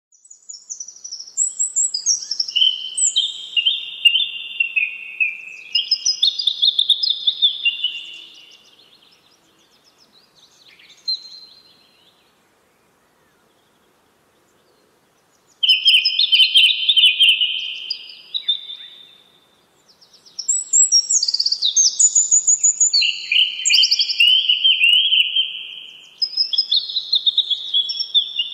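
A songbird singing long, varied phrases of rapid high notes, falling silent for a few seconds about midway before starting again.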